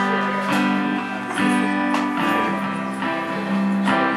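Acoustic guitar strummed in slow, ringing chords, a new chord struck about every second, while the player finds the key for the song.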